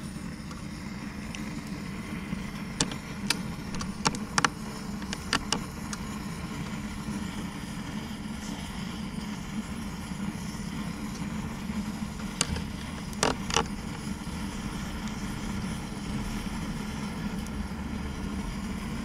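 Gas torch burner running steadily in a concrete-block firebox to light a wood fire. Sharp pops and cracks from the kindling catching come in two bunches, a few seconds in and again about two-thirds of the way through.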